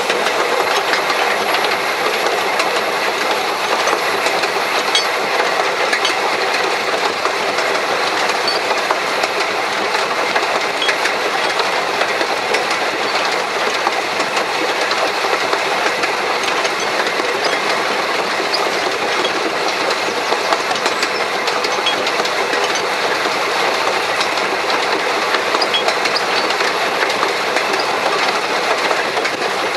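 Steady running noise of the 1883 Hunslet steam locomotive Lilian and its tender on the move, heard from the footplate: wheels running on the rails with light scattered clicks and rattles.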